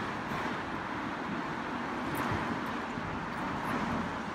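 Steady outdoor city background noise, a hum of distant traffic with no distinct events standing out.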